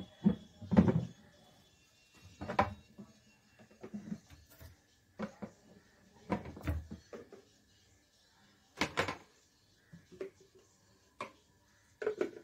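Irregular hard plastic clunks and knocks as the lid and parts of a Philips Avent electric steam sterilizer and baby bottles are handled and set down, with a knock every second or so.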